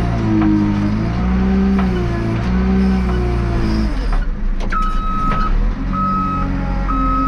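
JCB 3CX backhoe loader's diesel engine working, its pitch rising and falling under load. About four and a half seconds in, the machine's reversing alarm starts beeping roughly once a second as it backs up.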